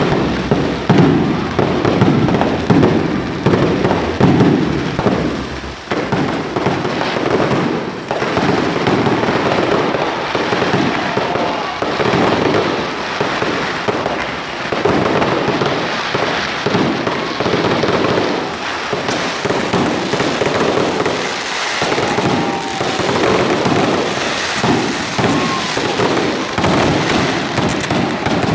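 Fireworks going off in a dense, continuous barrage of bangs and crackles, many overlapping with no pause.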